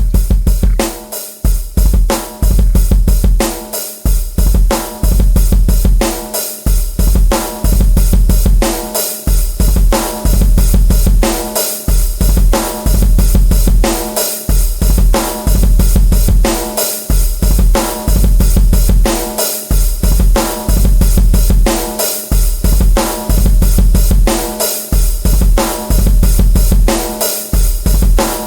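Drum kit playing a fast, steady beat with bass drum, snare, hi-hat and cymbals, over a heavy deep bass.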